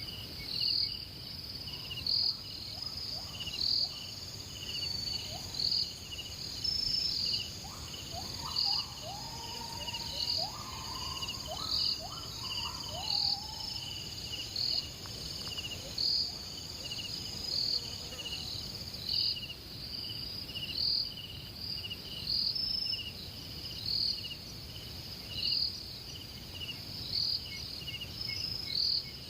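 Insects chirping: a continuous high trill with a louder chirp repeating about every second and a half. A few short, lower sliding notes come in between about 7 and 14 seconds in.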